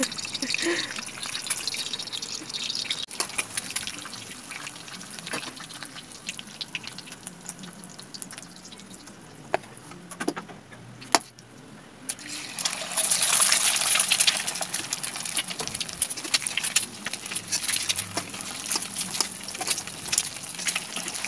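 Eggs frying in hot oil in a steel wok: the oil sizzles and spits with many small pops. About halfway through, the sizzling swells louder for a couple of seconds, then settles back to steady crackling.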